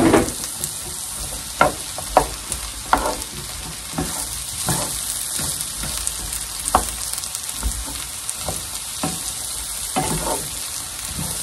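Sliced mushrooms, celery, onion and garlic frying with a steady sizzle in a non-stick pan, while a wooden spoon stirs them, knocking and scraping against the pan every second or so.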